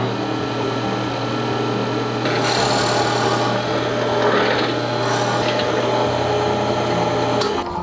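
Drill press running with its twist bit boring into a square wooden pen blank: a steady motor hum under a rasping cutting noise that swells twice as the bit bites deeper, then the motor cuts out near the end.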